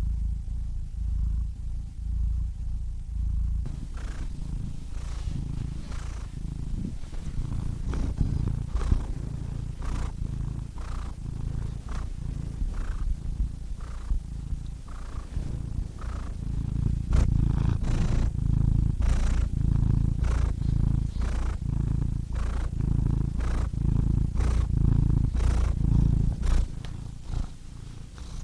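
Domestic cat purring close to the microphone: a pulsing low rumble that swells and eases with each breath. From a few seconds in, irregular light clicks sound over it. The purr grows louder a little past halfway and eases briefly near the end.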